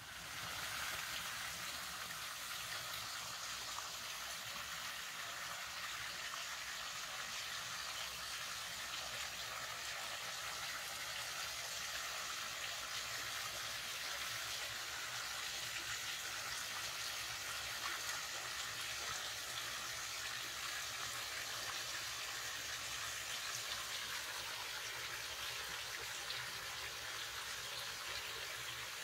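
Forest creek water running steadily: an even, unbroken rush of flowing water.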